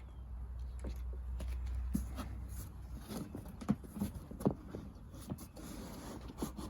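Irregular light knocks, scuffs and scratches from hens shifting about in their cardboard carrier box as it is handled, a few knocks louder than the rest. A low hum fades out about two and a half seconds in.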